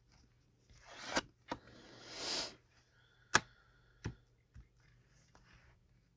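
Tarot cards being handled: soft sliding rustles as cards are drawn, and a few sharp taps or clicks as they are laid down, the loudest about three and a half seconds in.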